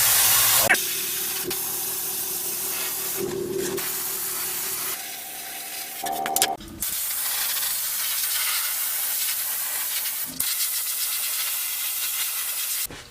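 Spray adhesive hissing as it is sprayed onto seat foam, in long steady bursts with a short break about five seconds in.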